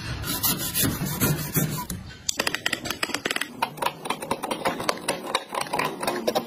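Wood chisel paring down through hardwood end grain, the fibres giving a rapid crackle of small clicks as curled shavings come off, from about two seconds in.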